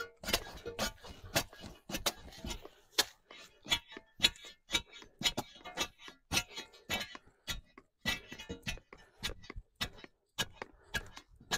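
Steel tamping bar repeatedly driven down into dry concrete mix and gravel packed around a wooden post: an uneven run of sharp knocks, about two or three a second. The concrete is dry-packed, unmixed, and tamped tight to set the post.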